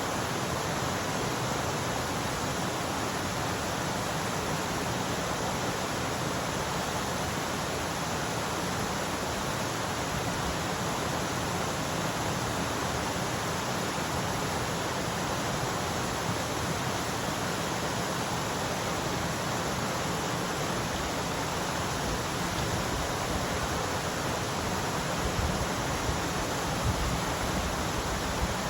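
Mountain stream rushing steadily over rocks, a constant even splashing.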